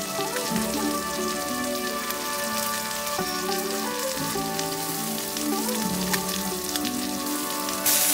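Fish pieces sizzling in hot oil in a flat iron pan over a wood fire, a steady crackling hiss that grows louder near the end as another piece is laid in. Instrumental background music with a slow melody plays over it.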